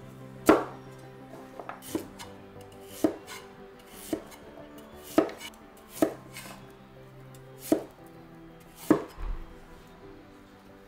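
Chinese cleaver chopping kabocha squash and then a white vegetable into wedges on a wooden cutting board: about eight sharp knocks of the blade striking the board, roughly a second apart.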